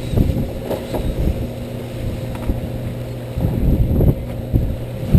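Fishing boat's engine running with a steady hum, while wind buffets the microphone in gusts, strongest near the end.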